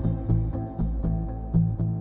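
Instrumental background music: pitched notes at a steady, even rhythm.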